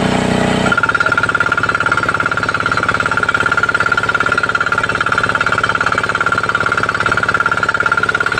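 Small diesel engine of a Yamma water-pump set running steadily with a fast, even knocking beat while it pumps water from a tube well. The sound changes abruptly about a second in.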